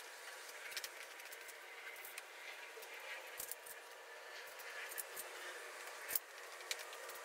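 Scattered light clicks and small metallic clinks from hand tools and parts being handled during an oil change, with one sharper knock about six seconds in.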